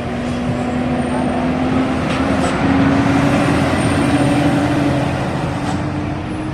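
A heavy road vehicle's engine running as it passes, over traffic noise. Its low note rises slightly in pitch and is loudest about three seconds in, then eases off.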